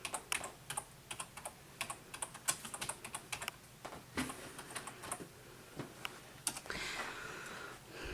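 Computer keyboard keys pressed one at a time at an uneven pace, the hunt-and-peck typing of a young child entering a command.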